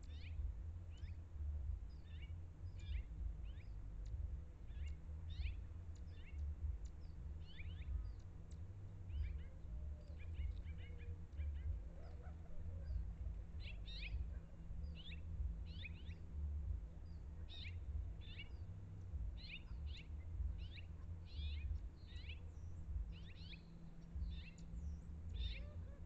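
Small birds chirping: short high chirps, often in quick runs of two or three, coming every second or so, over a steady low rumble.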